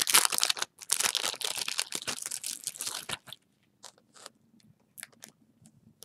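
Plastic packaging crinkling as a packet of gem stickers is handled: a dense crackly rustle for about three seconds, then a few scattered light clicks and rustles.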